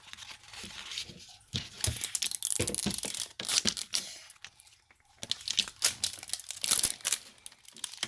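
Toy packaging being torn open and crinkled by hand, in bursts of tearing and crackling with a short pause about halfway through.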